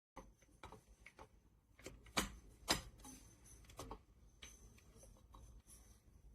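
Scattered clicks and knocks of hard objects being handled, with two sharper knocks about half a second apart a little after two seconds in.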